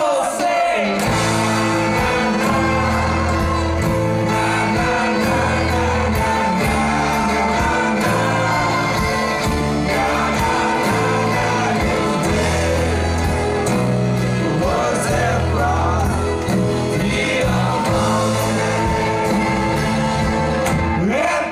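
A live band playing with brass, including a sousaphone, and drums, and several voices singing together. A steady bass line steps between notes under a regular beat.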